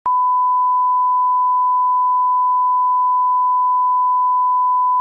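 One long electronic beep at a single steady pitch, unbroken and unvarying, like a censor bleep or test tone.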